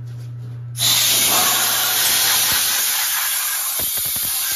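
Compressed air hissing loudly and steadily, starting abruptly about a second in over a low machine hum, with a few short knocks near the end.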